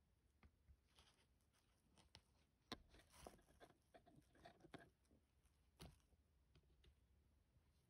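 Faint handling noise of fingers working a nylon string along a semi-rimless glasses frame: scattered small ticks and rustles, the sharpest about a third of the way in and again near three quarters.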